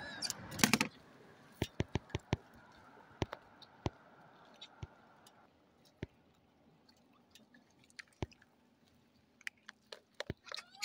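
Scattered sharp clicks and taps, with a short burst of rustling noise under a second in and a faint steady hum that stops about halfway through.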